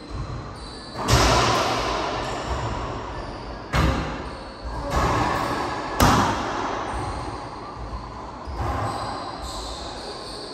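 Racquetball rally: about five sharp smacks of racquet and ball off the court walls over ten seconds, each ringing out in a long echo in the enclosed court.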